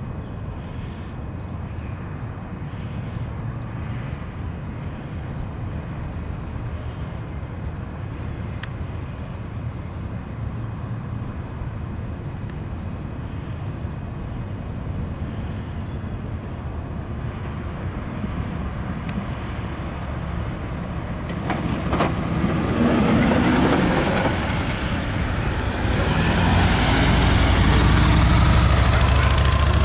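Steady low rumble for about twenty seconds. Then road vehicles, a minivan and a motorcycle, drive past close by, their engine and tyre noise growing louder, with a low steady engine hum loudest near the end.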